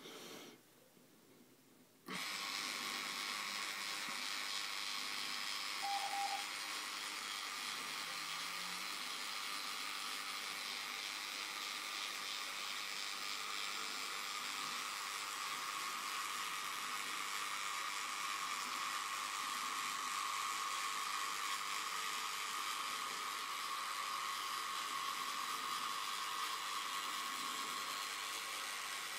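Yaesu G-450C antenna rotator's electric motor and gearbox running steadily as it turns the mast, a whir that starts suddenly about two seconds in.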